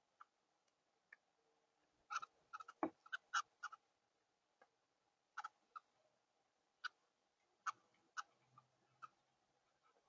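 Sparrow pecking seed on a feeder platform: a string of short, sharp, irregular taps, a dozen or more, bunched most closely between about two and four seconds in.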